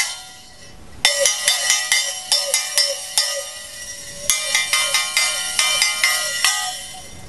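A small copper shell casing with hacksaw-cut slits, held to the mouth and tapped with a pencil. It gives a quick series of bright metallic pings, about four a second, each ring wavering slightly in pitch. The tapping starts about a second in, pauses briefly midway, and stops near the end.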